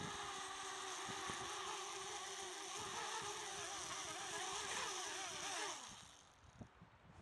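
Eachine Falcon 180 quadcopter's brushless motors whining, the pitch wavering quickly up and down. The motors spool down and stop about six seconds in.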